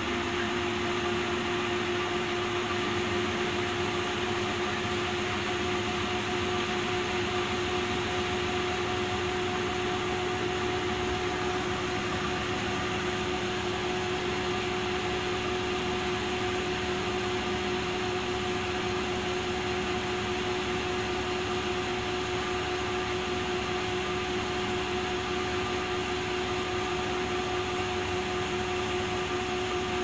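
1980 Candy Primato washing machine with its stainless steel FORMULA INOX drum in an intermediate spin at 500 rpm. It makes a steady whine at one pitch over an even rushing noise, with no change in speed.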